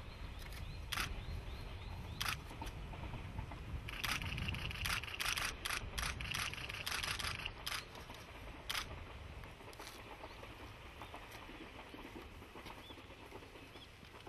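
Still-camera shutters clicking: a couple of single clicks, then a rapid run of shots for about four seconds, over a low steady rumble.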